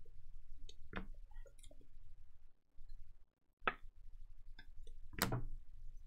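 Stack of Panini Donruss basketball trading cards being shuffled through by hand, card stock sliding and flicking with soft clicks. Three sharper snaps stand out, about one, three and a half and five seconds in, the last the loudest.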